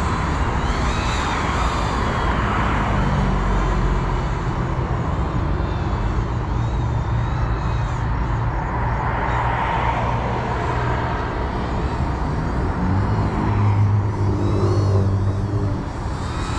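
GEPRC CineLog 35 FPV drone's motors and propellers whining, the pitch rising and falling as the throttle changes, over a constant noisy rumble. A low hum grows louder for a few seconds near the end.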